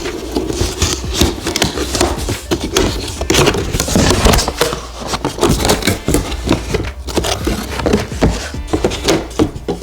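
Cardboard box and packaging being handled during unboxing: rustling and scraping with many quick knocks and clicks.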